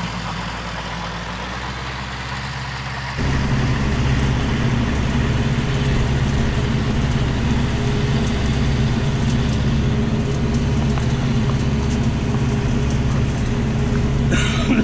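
Landini tractor engine running steadily under load. For the first three seconds it is quieter and more distant, then it becomes loud and close from inside the tractor cab. A brief sound with a falling pitch comes just at the end.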